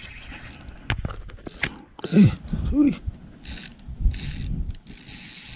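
OXGN Musky fishing reel working against a hooked fish: about five short bursts of mechanical ratcheting whir, with a few low knocks. Two short pitched sounds just after two seconds in are the loudest part.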